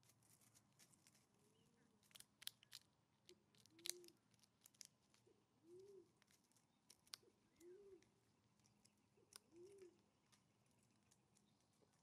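Common raven pecking dried mealworms off a wooden stump: sharp clicks and taps of its bill against the wood, with light crunching in dry leaves. A low, soft cooing call repeats about every two seconds.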